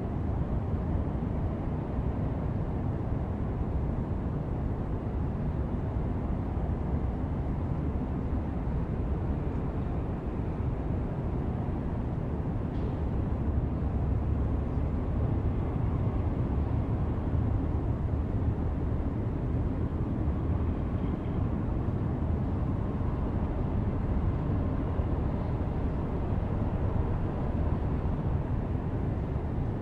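Steady low rumble of a running vehicle engine, holding an even level throughout.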